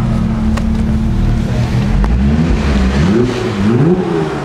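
Gemballa Avalanche 650 Roadster's twin-turbo flat-six idling, then revved in several quick blips about two seconds in, the pitch rising and falling each time.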